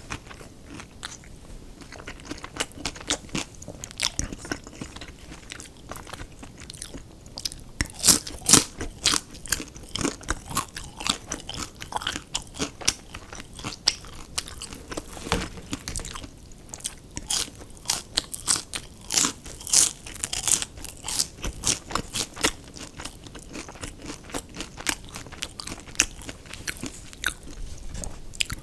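Close-miked eating of crispy fried fast food: steady crunching bites and chewing, with sharper, louder crunches about eight seconds in and again near twenty seconds.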